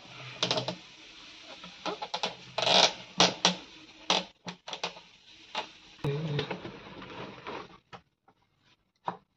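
PVC pipe fittings handled and pushed together by hand: irregular plastic clicks and knocks with rubbing, over a steady hiss that cuts off near the end.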